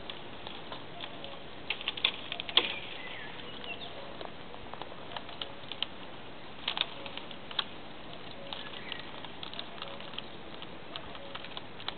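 Wood campfire crackling: irregular sharp snaps and pops, with a cluster of louder ones about two seconds in and another near seven seconds.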